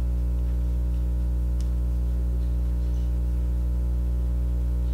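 Steady electrical mains hum with a stack of buzzing overtones, unchanging throughout, with one faint click about a second and a half in.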